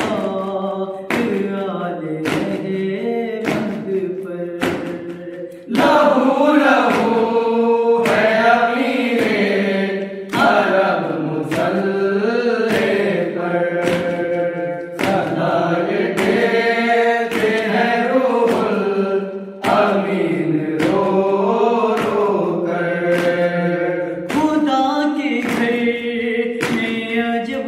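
A group of male voices chanting a nauha (Shia lament) together, unaccompanied. Regular sharp hand strikes of matam keep the beat, about three every two seconds.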